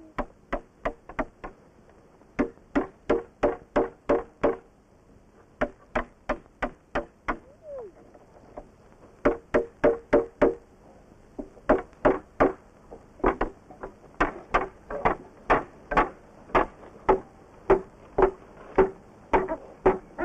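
Hollow wooden knocking, about three knocks a second in runs broken by short pauses, each knock with a slight ringing tone.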